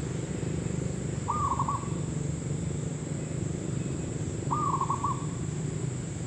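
Zebra dove cooing twice, about three seconds apart: each call a quick upward note run into a short string of rolling coos.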